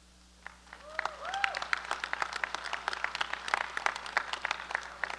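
Audience clapping, starting about half a second in and filling out quickly, with a couple of short calls from the crowd about a second in.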